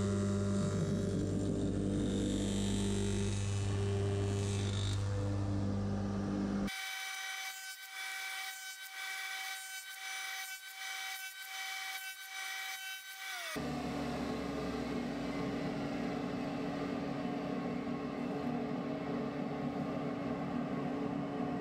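Radial arm crosscut saw with a 30-degree cutter running and cutting sawtooth grooves across oak, its motor a steady hum. About seven seconds in the sound changes abruptly to a quieter stretch of a few steady tones and a row of evenly spaced strokes. About fourteen seconds in it changes back to a steady machine hum.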